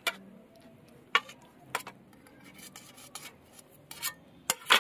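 Steel kitchen knife clicking and scraping against a stainless steel plate while slicing raw chicken breast thin: a handful of sharp, irregular metallic clicks, the loudest about a second in and twice near the end.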